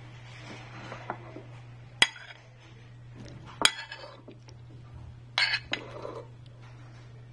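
Metal spoon clinking and scraping against a ceramic bowl while scooping up bean stew and rice: a few sharp clinks a second or two apart, with a short rattling cluster near the end.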